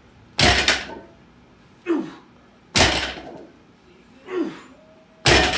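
A 315 lb barbell loaded with Rep Fitness bumper plates set down on the garage floor three times, about two and a half seconds apart, between deadlift reps, each a heavy thud with a short ringing tail. A brief grunt from the lifter comes between the impacts.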